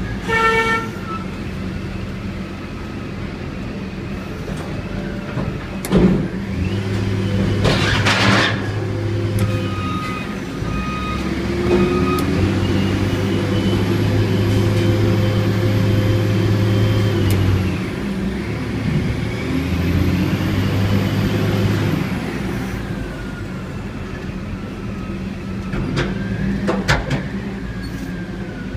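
Container-handling machine's diesel engine running steadily, with three long stretches of heavier drone and a whine that rises and falls as the hydraulics move a container on the mast. A short tone sounds right at the start, and there is a sharp knock about six seconds in.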